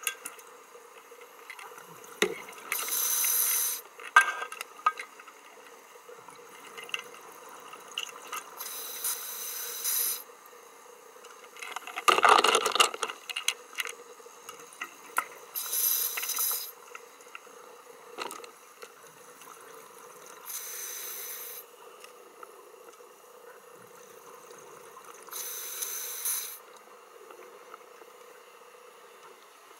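Scuba diver's regulator exhalations heard underwater: hissing bursts of bubbles about every five seconds, with a louder, deeper gurgle about twelve seconds in. A faint steady hum and small clicks lie underneath.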